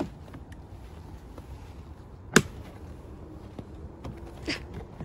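Hard plastic knocks as a storage tote and its lid are handled: a light click at the start, one sharp knock about halfway through, and a lighter knock near the end.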